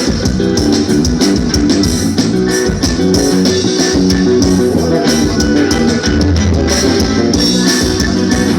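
Forró band playing live, an instrumental stretch between sung lines: a steady bass line and drums under melodic instruments, with no singing.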